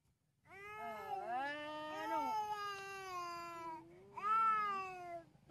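A toddler crying: one long, wavering wail, then a second, shorter cry near the end.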